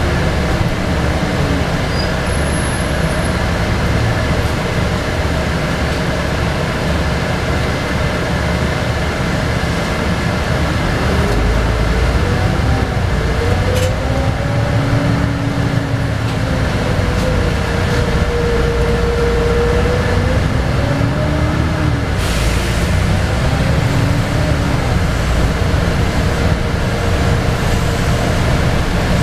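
Inside a LiAZ 5292.22 low-floor city bus on the move: the diesel engine and drivetrain run under a steady road and tyre rumble. Through the middle a whine rises and falls in pitch as the bus speeds up and slows.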